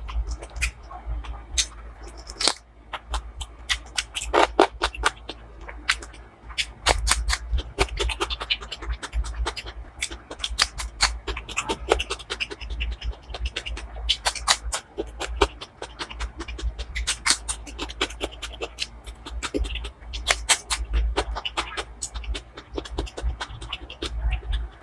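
Close-miked eating sounds: chewing with many sharp, irregular smacking and clicking mouth noises.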